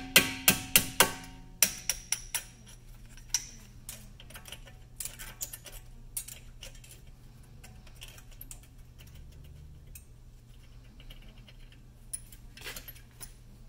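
Small hammer tapping out the pad retaining pins of a Tesla Model 3's Brembo brake caliper: a quick run of about ten sharp metallic strikes with a slight ring in the first two seconds or so. Then scattered lighter clinks of metal parts being handled.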